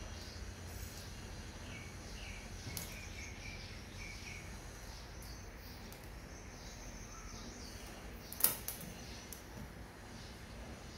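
Quiet background noise with a few faint bird chirps between about one and four seconds in, and a sharp click about eight and a half seconds in, followed by a smaller one.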